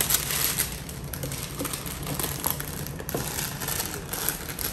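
Clear plastic shrink wrap crinkling and crackling in irregular bursts as it is pulled and peeled off a smartphone's retail box, a tight double layer of wrap that is slow to come off.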